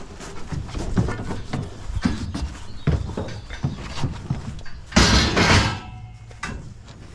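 Steel scaffold tubes and frames being loaded onto a metal box trailer: a series of knocks, then about five seconds in a loud metallic clatter with a short ringing as a piece lands in the trailer bed.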